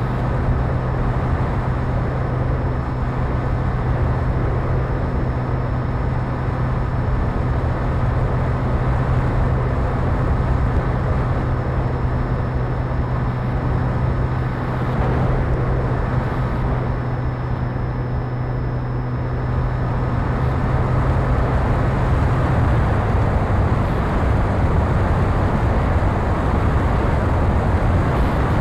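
Wind rushing over an onboard camera on a fixed-wing RC drone in flight, with the steady hum of its electric motor and propeller underneath. The hum fades out about three-quarters of the way through while the wind noise grows slightly louder.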